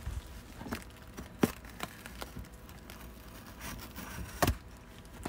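Cardboard shipping box being handled and opened by hand: low scraping and rustling with scattered sharp knocks, the two loudest about a second and a half in and near the end.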